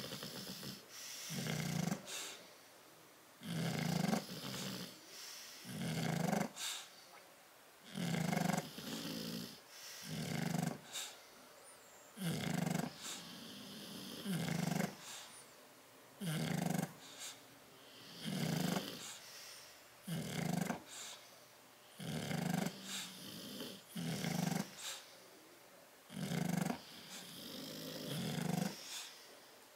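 Sleeping bulldogs snoring, with a loud rasping snore about every two seconds.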